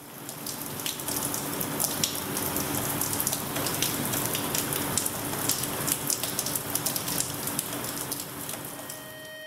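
Rain falling steadily, a dense patter of drops, with a faint low drone underneath. It swells in over the first second and cuts off abruptly at the end.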